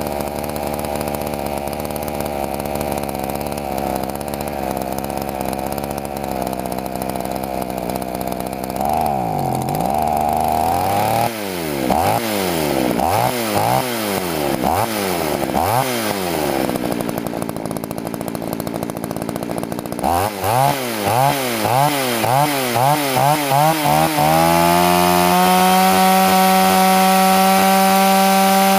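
Poulan two-stroke chainsaw engine being warmed up. It runs steadily, then the throttle is blipped over and over so the engine revs up and falls back again and again. Near the end it is held at a high, steady speed.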